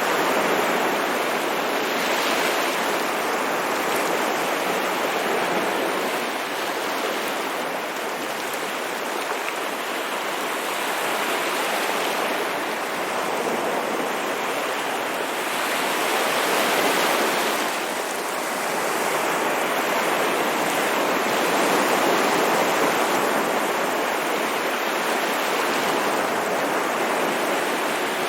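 Sea waves breaking and washing on a shore: a continuous hiss of surf that swells and eases every few seconds.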